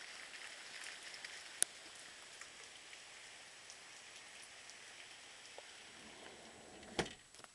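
Rain falling: a steady light hiss with many small drop ticks. A sharp click comes about a second and a half in, and a louder knock near the end.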